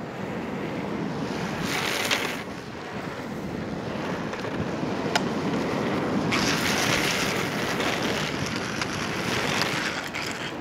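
Downhill longboard run: wheels rolling fast on asphalt under heavy wind noise on the microphone. About two seconds in there is a short hissing slide, and a longer one starts about six seconds in and lasts some three seconds, as the urethane wheels and gloved hand scrape sideways across the road. A single sharp click comes near the middle.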